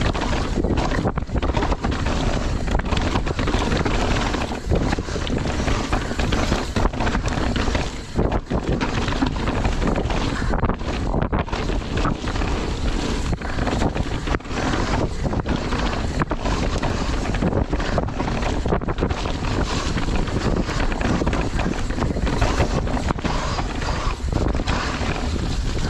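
Wind buffeting the camera microphone and the knobbly tyres of a downhill mountain bike rushing over dirt and roots at speed. Many short knocks and rattles run through it as the bike hits bumps.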